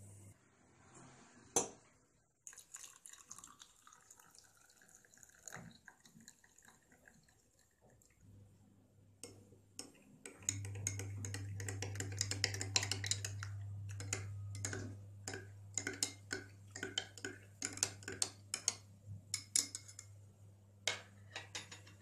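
Metal teaspoon stirring honey and lemon into warm water in a drinking glass. It gives one sharp clink about a second and a half in, then clinks rapidly and unevenly against the glass through the second half, over a low steady hum.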